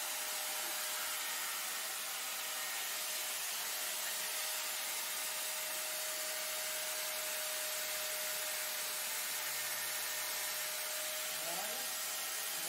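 Small handheld electric disc cutter running steadily as it cuts through a ring: a constant whine over a steady hiss.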